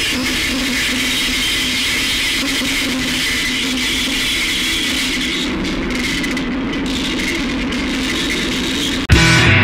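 A steady noisy drone with a faint held low tone and a bright hiss above, with no beat, closing out a track. About nine seconds in it cuts off and loud bass-and-drums rock starts abruptly.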